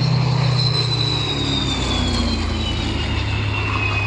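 Rolls-Royce Merlin V12 engine of a Second World War fighter flying past, a steady drone whose pitch slides down as it goes by.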